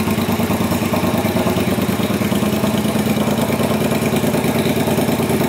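Triumph America's parallel-twin engine idling steadily, with an even, fast pulse and no revving.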